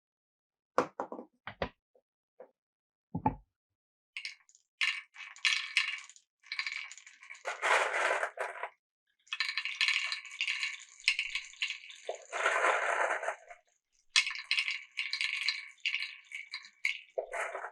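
Glass marbles rolling and clicking through a wooden Cuboro marble run. It opens with a few separate knocks, then becomes a dense clatter of clicks and rattles, with two spells of fuller rolling rumble as marbles run along the channels.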